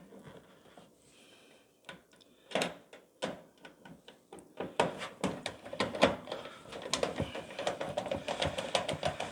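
A screw being driven into the microwave's metal cover with a hand screwdriver: a few knocks, then about five seconds of quick, rapid clicking as the screw is turned in.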